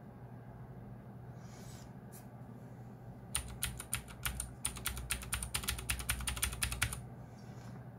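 Fast typing on a Geekstar x Deck Hassium Pro 108 mechanical keyboard with clicky blue switches: a quick run of key clicks that starts about three and a half seconds in and stops about a second before the end.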